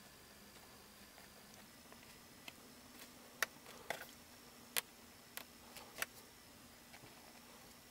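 A handful of light, sharp taps and clicks from small cardboard craft pieces and a glue bottle being handled and set down on a tabletop, over a faint steady hum.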